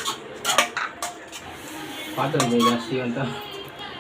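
Metal kitchen utensil clinking and scraping against a pan or plate, with a few sharp clinks in the first second and a half. A person's voice is heard briefly around the middle.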